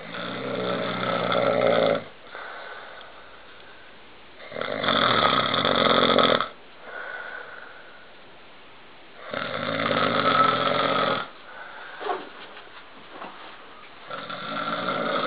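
A man snoring in deep sleep: four long, loud snores about every four and a half seconds, each lasting about two seconds, with softer breathing between them.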